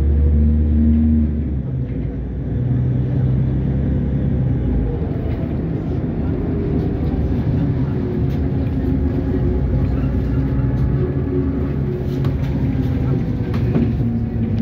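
NefAZ-5299 city bus driving along, heard from inside the passenger cabin: a steady engine and drivetrain hum with road noise. The engine note drops about a second and a half in, then holds steady, and a few rattles come near the end.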